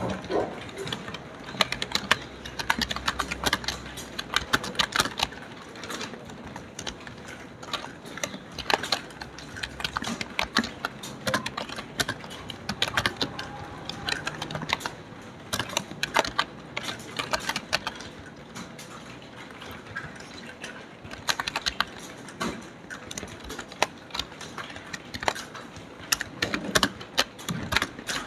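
Fast typing on a computer keyboard: a dense, irregular run of key clicks with louder strokes here and there.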